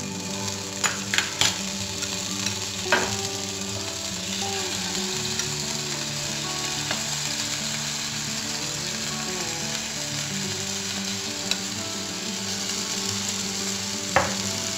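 Butter sizzling in a hot nonstick frying pan, then pancake batter frying as it is poured in and spread. There are a few sharp knocks in the first three seconds and another near the end.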